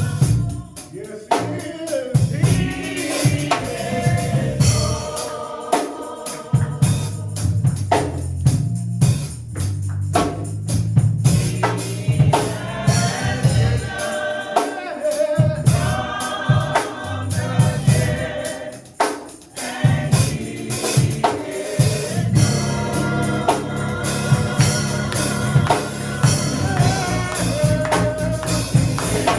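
Gospel choir and congregation singing a hymn, accompanied by organ, a bass line and a tambourine or drums keeping a steady beat.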